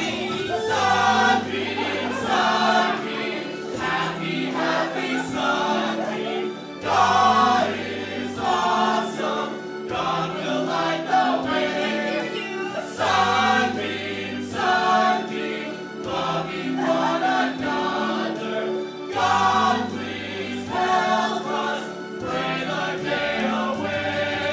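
A group of stage performers singing a simple chant-like camp anthem together, in a repeat-after-me style, over a musical accompaniment with a repeating bass line.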